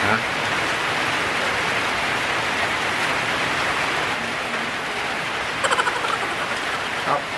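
Steady, even rain-like hiss. A bit over halfway in, a metal spoon clinks and scrapes several times in quick succession against a ceramic bowl of food, with one more clink about a second later.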